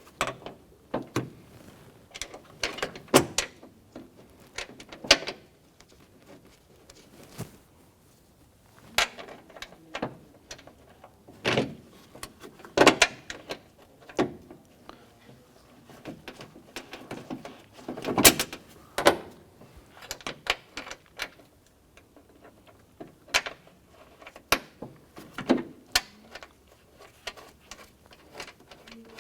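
Irregular clicks, knocks and rattles of a door latch and lock actuator being handled and fitted inside a car's door shell, with screws being started.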